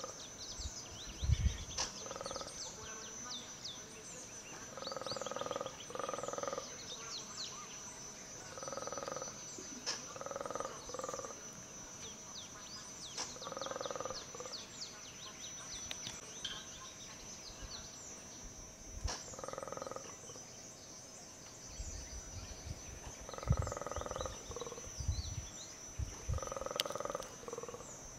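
Black-and-white colobus monkeys giving repeated croaking roars, each under a second and coming at irregular gaps of one to several seconds, over a steady high insect drone and short high chirps.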